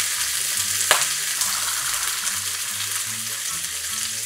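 Clams sizzling and spitting in hot oil in a frying pan, with a sharp pop about a second in. The clams went into the pan wet, and the water meeting the oil makes it spatter.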